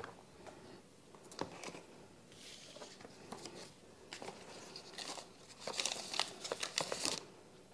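Faint handling of smartphone packaging: scattered light clicks and crinkling of a phone box and its wrapping, getting busier in the last couple of seconds.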